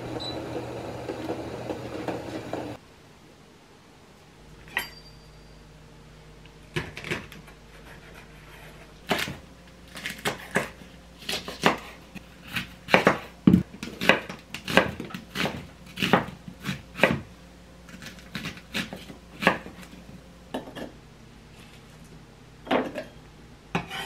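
Water bubbling in an enamel saucepan around an upturned glass jar being sterilized in hot water, cutting off after about three seconds. Then a kitchen knife chopping green chili peppers on a wooden cutting board: single chops and quick runs of strokes with short pauses between.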